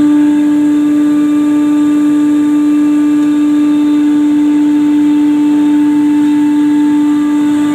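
Spice-processing plant machinery running: a loud, steady hum with one strong low tone and fainter higher tones over a light hiss, holding even throughout.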